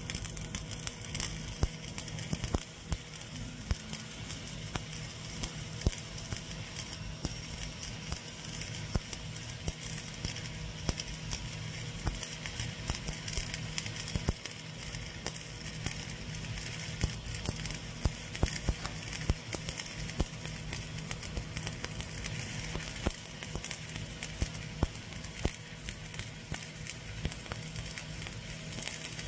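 Stick-welding arc of an E7016 3.2 mm low-hydrogen electrode burning steadily while running the second pass of a vertical fillet weld: continuous, irregular crackling and spitting over a steady low hum.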